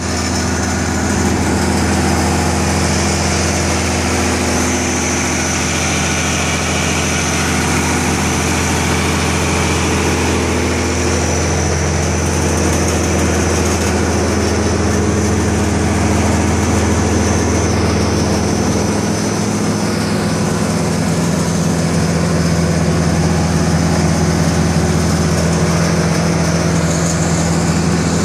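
Tractor-driven forage blower for filling a silo, running steadily at speed under the tractor's engine, a continuous low hum with a high whine over it.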